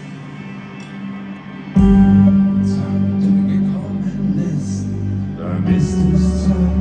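Rock band playing live over a stadium sound system: a quiet held passage, then about two seconds in the full band comes in much louder, with heavy low bass under it.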